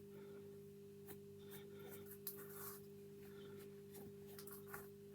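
Faint scratching and rubbing as a rusty metal lock part is cleaned up by hand, with a few light clicks, over a steady low hum.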